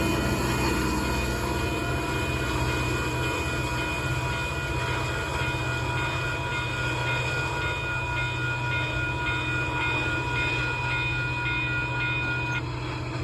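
Union Pacific freight train rolling past with a steady low rumble. A few steady high-pitched tones sound over it and cut off abruptly near the end.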